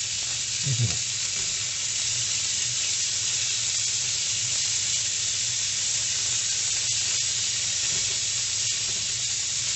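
Cubes of tuna sizzling steadily in a little hot oil in a frying pan as they are turned, with a few faint ticks near the end.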